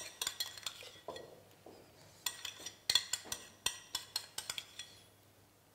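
A spoon and kitchen utensils clinking and tapping against a stainless steel mixing bowl and dishes as mayonnaise is spooned in: a run of irregular sharp clicks that dies away about five seconds in.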